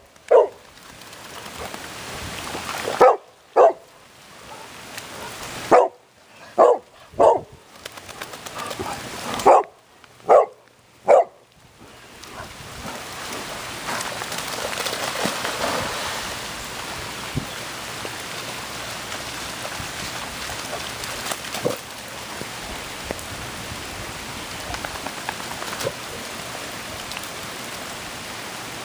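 Golden retriever barking, about nine barks in twos and threes over the first eleven seconds; after that, steady rain falling on the wet lawn and puddles.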